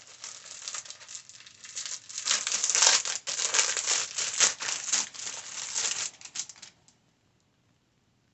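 Plastic packaging crinkling and tearing as a pack of cloth face masks is opened by hand, in irregular rustles that stop about seven seconds in.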